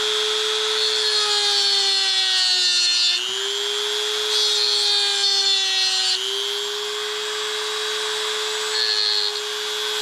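Dremel rotary tool spinning a heavy-duty cutoff wheel that grinds a slot into the head of a stripped metal screw: a steady motor whine with a gritty hiss from the cut. The whine sags in pitch as the wheel bites harder, about three seconds in and again about six seconds in.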